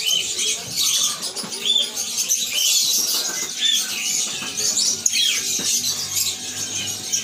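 Many small birds chirping and twittering in quick, overlapping calls, with faint murmured voices underneath.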